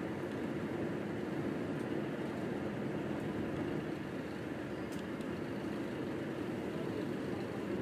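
Steady low rumble of background noise, even throughout, with a faint click about five seconds in.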